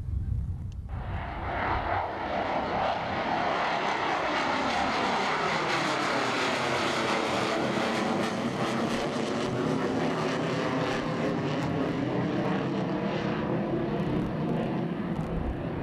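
Two McDonnell Douglas F-4 Phantom II jets passing in formation, their J79 turbojets making a loud, steady roar that starts abruptly about a second in, its tone slowly sweeping as they go by.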